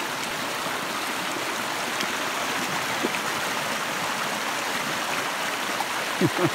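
Shallow creek water rushing steadily over rocks. Just before the end there are a couple of short, falling voice-like sounds.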